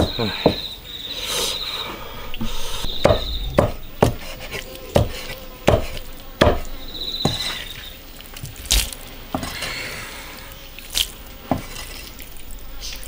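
A cleaver knocking on a wooden chopping block in irregular single strokes as cooked beef tendon is cut and handled. Insects chirp in short high buzzy trills between the knocks.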